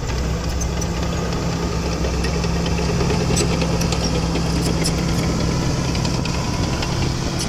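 Caterpillar D4H crawler dozer's diesel engine running at a steady pitch, with a few sharp clanks in the middle.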